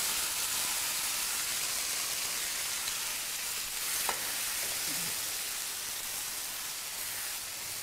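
Wet coconut and poppy-seed paste sizzling steadily in hot mustard oil in a wok, freshly added, while it is stirred with a spatula. The sizzle eases a little toward the end.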